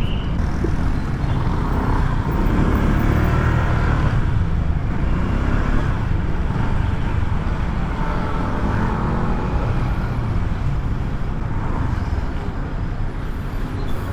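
Road traffic noise: motor vehicle engines running, with a steady low rumble.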